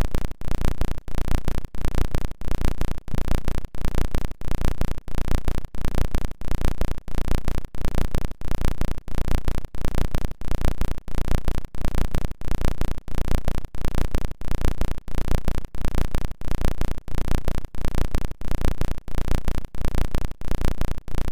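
A stuck audio loop from a playback or encoding glitch: a fraction of a second of sound repeats over and over, steadily and with a brief dropout at each repeat.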